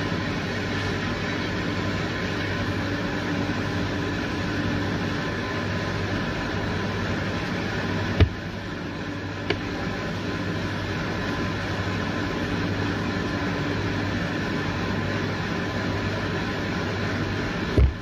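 Steady machine hum with an even, fan-like noise, carrying a low drone and a few fixed tones. A sharp knock about eight seconds in and another near the end.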